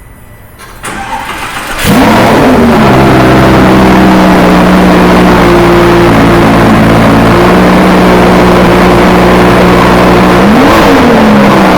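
Lamborghini Gallardo V10 engine being started: the starter turns over for about a second, the engine catches with a loud rev flare that rises and falls, then settles into a steady idle. Near the end a single quick throttle blip rises and falls back to idle.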